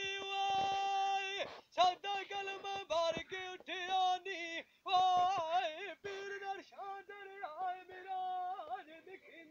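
A man sings a Punjabi dhola solo in a high, ornamented voice. He holds one long note for about a second and a half, then sings short phrases that bend and waver in pitch, with brief breaks between them.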